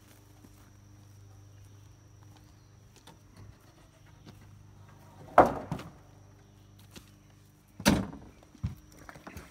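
Rough-sawn lumber boards being loaded onto a wooden utility trailer: a loud wooden clatter a little past halfway as a board lands on the stack, then a second sharp bang near the end. A low steady hum underneath.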